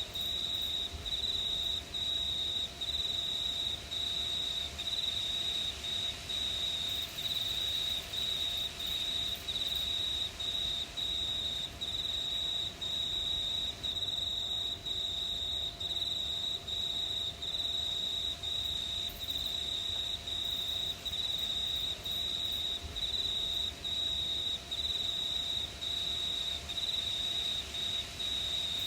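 Crickets chirping: a steady high-pitched trill that breaks off briefly about once a second, over faint low background noise.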